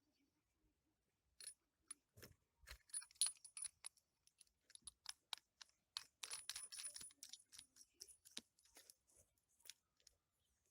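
Faint light clicking and metallic clinking of small parts as a hand sewing awl is handled and put together, densest around the middle, with a thin high metallic ring.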